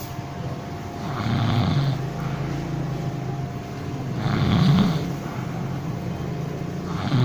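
A man snoring in deep sleep while sitting in a barber's chair, with a loud snore roughly every three seconds.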